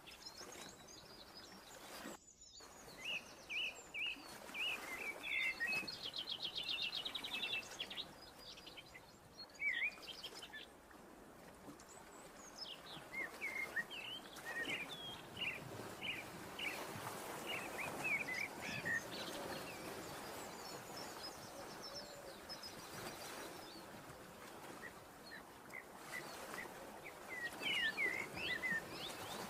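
Small birds chirping and twittering in short phrases over a steady hiss of background noise. The sound cuts out completely for a moment about two seconds in.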